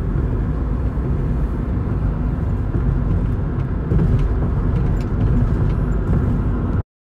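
Steady low road and engine rumble inside a Nissan NV200 van's cabin at highway speed. It cuts off abruptly near the end.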